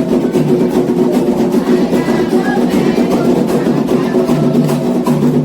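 Candomblé ritual music: atabaque hand drums beating a fast, dense rhythm with a struck bell part, under voices holding a sung chant.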